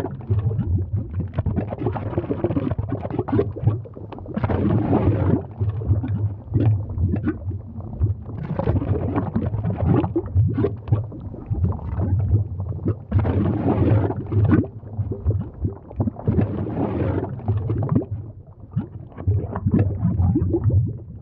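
Deep rumbling and gurgling of an erupting volcano's lava, swelling and fading in uneven surges every second or two.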